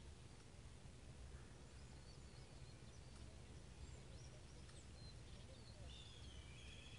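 Near silence: quiet outdoor ambience with a low steady rumble and a few faint bird chirps, with one longer bird call near the end.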